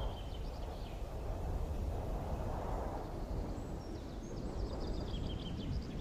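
A bird chirping in two quick runs of short high notes, one right at the start and a longer one from about halfway, over a steady low rumble.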